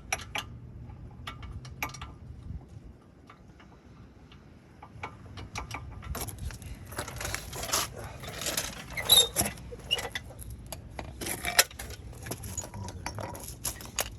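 Metal hand tools clinking and rattling as a longer socket extension is handled and fitted: a few sharp clicks at first, then a denser run of metallic jangling and scraping from about six seconds in.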